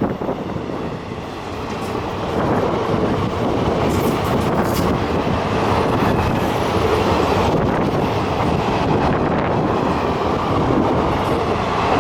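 Coaches of an Indian Railways express train rolling past at speed without stopping: a steady, loud rush of wheels on rail, with a few sharp clanks about four seconds in.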